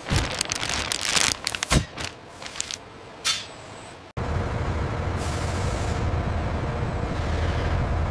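Irregular sharp bursts of air hissing and clicks at a vacuum-bag hose fitting on a composite part. About four seconds in it cuts abruptly to the steady low rumble of a heavy transporter vehicle moving an airframe.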